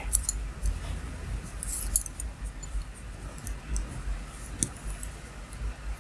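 Wooden double-pointed knitting needles clicking and ticking lightly against each other as stitches are knitted in the round, with a couple of sharper taps about two seconds in and again near the end.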